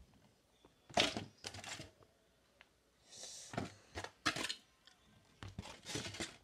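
Close handling noises: several sharp rustles and knocks in a few short clusters, with a brief hiss about three seconds in.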